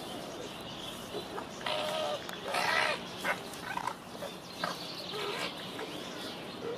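Arctic fox calling: a series of short, high-pitched cries, loudest around two to three seconds in, with a few fainter ones after, over a steady background hiss.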